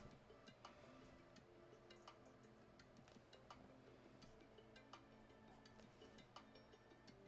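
Near silence: faint soft background music with held low notes, with light irregular ticks scattered through it, a few each second.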